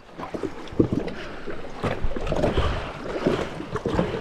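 Water sloshing and slapping around a jet ski's hull as it is rocked side to side in the shallows, shaking sand and shells out of its water intake, with a few knocks against the hull.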